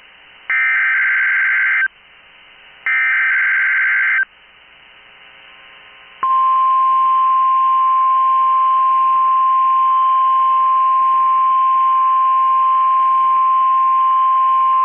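NOAA Weather Radio SAME alert signal for a Required Weekly Test, heard through a radio: two harsh warbling bursts of digital header data, each about a second and a half, then after a pause of about two seconds the steady 1050-hertz warning alarm tone, held for about nine seconds.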